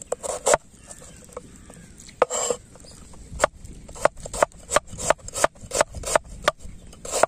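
Kitchen knife slicing a red onion on a wooden cutting board: sharp taps of the blade striking the board, about two to three a second, with a pause of about a second and a half near the start.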